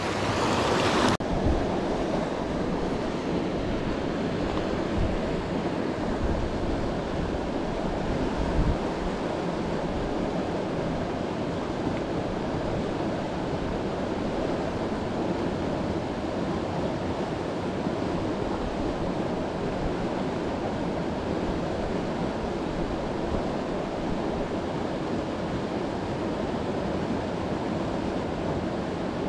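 A mountain river rushing steadily over boulders and through rapids, a constant wash of water, with some wind buffeting the microphone now and then.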